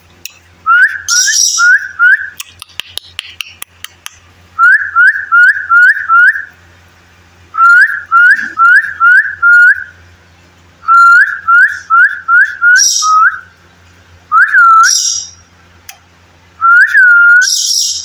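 A person whistling to caged birds: short rising "wheet" notes in quick runs of four to six, ending with two longer drawn-out whistles. A few short, high chirps come between the runs.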